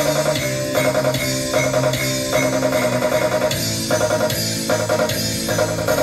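Music with guitar and a drum kit, playing loudly with a steady beat through DAT DS122 12-inch loudspeakers driven from a mixer. The speakers are set for mid and high only, with the subwoofer not yet switched on.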